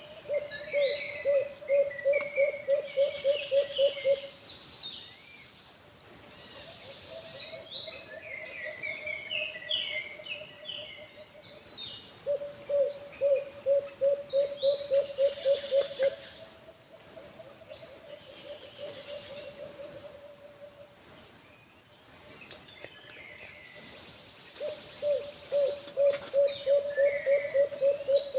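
Alimukon (wild dove) calling: runs of rapid low cooing notes a few seconds long, four times over, with small birds chirping high above it.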